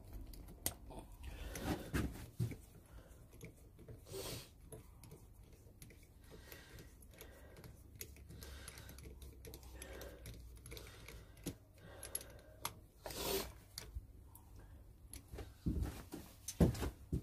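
Scattered clicks and knocks of hand tools and metal parts as the spark plug is taken out of an Aprilia RS125's engine, with a few louder knocks now and then.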